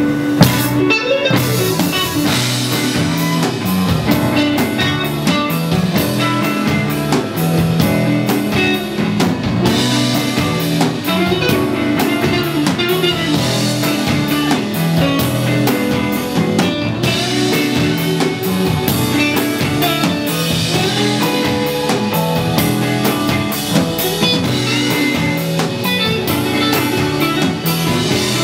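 Rock band playing live: guitar over bass and a drum kit keeping a steady beat.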